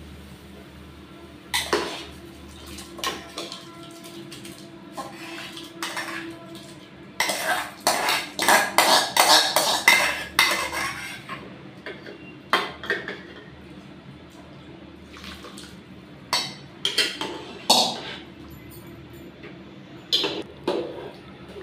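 Steel spoon clinking and scraping against aluminium cookware as washed rice is scraped from a bowl into a pot of boiling water and stirred. A dense run of scraping and clanks comes about seven to ten seconds in, with scattered clinks before and after.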